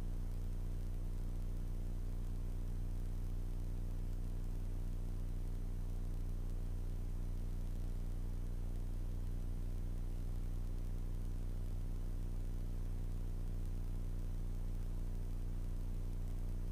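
Grumman Tiger's four-cylinder Lycoming engine and propeller in cruise: a steady low drone with an even hum and no change in pitch.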